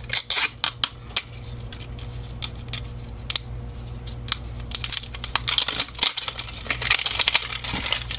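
Plastic wrapper crinkling and tearing as it is peeled off a toy surprise ball by hand: a cluster of sharp crackles in the first second, then a denser stretch of crinkling in the second half, over a steady low hum.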